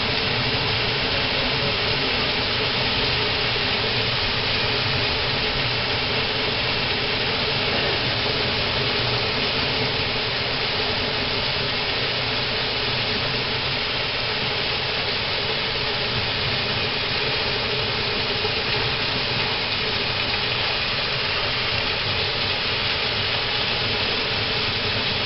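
Heavy rain pouring down steadily, a dense unbroken hiss that does not let up.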